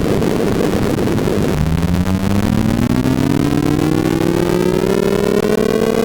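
Synthesized sorting-algorithm sonification: a dense jumble of rapid electronic tones for about the first second and a half, then one buzzy tone gliding steadily upward in pitch over a low steady tone. The pitch follows the bar heights, so the smooth rise is the sound of the values being passed in ascending order.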